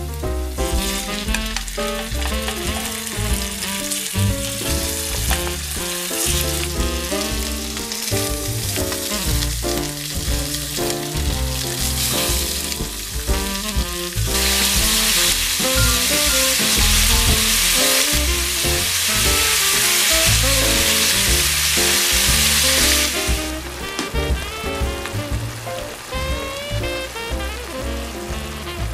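Garlic slices sizzling in oil in a stainless steel frying pan. About halfway through, the sizzle turns loud and steady as slices of raw pork belly are laid in, then eases off. Background music plays throughout.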